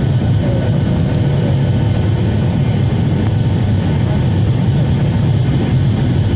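Boeing 737 jet engines and rushing air making a steady, even drone.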